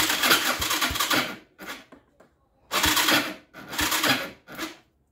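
Hands working in an ATV's plastic bodywork: three bursts of rustling and scraping, the first about a second and a half long, with a few light knocks.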